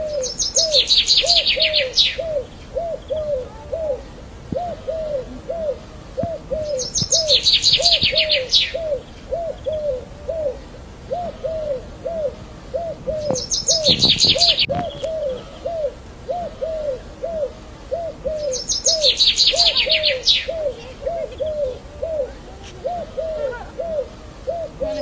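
Birdsong from two kinds of bird. One gives short, low notes about twice a second without pause. The other sings a loud, high, rapid trilled phrase of about a second and a half, returning roughly every six seconds.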